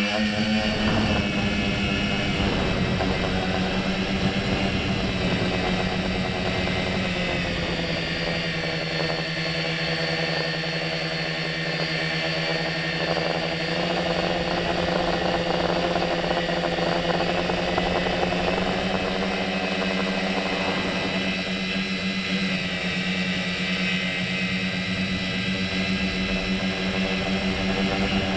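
Tricopter's electric motors and propellers running in flight: a steady buzzing whine that rises in pitch right at the start and then drifts slightly up and down with the throttle.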